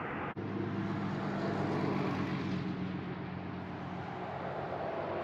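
Steady hum of a vehicle engine with road noise, broken by a short dropout about a third of a second in.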